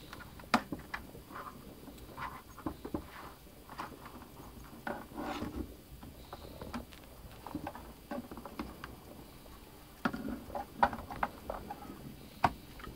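Hands handling a netbook's plastic case: scattered small clicks, taps and scrapes as the keyboard and palm rest are pressed down and the machine is turned over on a table.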